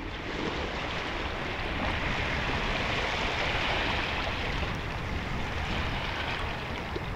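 Small sea waves washing against shoreline rocks: a steady rushing that swells a little in the middle.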